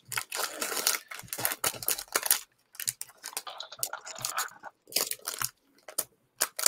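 A Pokémon booster pack's foil wrapper crinkling and tearing as it is opened by hand: dense crinkling for the first couple of seconds, then scattered crackles.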